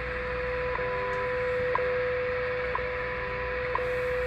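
WWV time-signal broadcast on 15 MHz coming from the speaker of a Realistic DX-100 shortwave receiver: a steady tone broken by a short tick once a second, four times, over shortwave static hiss.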